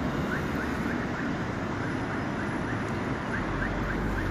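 Pedestrian crossing signal chirping in a rapid, even series of short identical beeps while the walk light is green, over steady street traffic noise.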